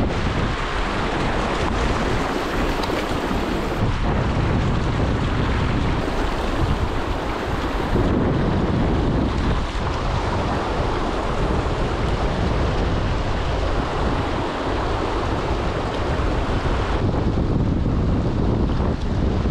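Fast, shallow river rapids rushing over stones, a steady rush of water, with wind buffeting the microphone.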